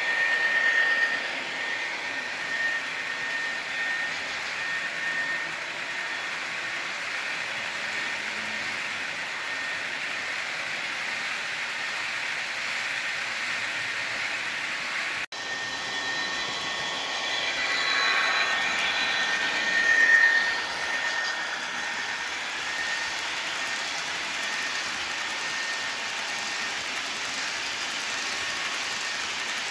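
HO scale model freight train of covered hopper cars rolling along the layout track: a steady hiss of wheels on rail with a thin high whine. The sound drops out for a moment about halfway, then swells louder for a couple of seconds before settling again.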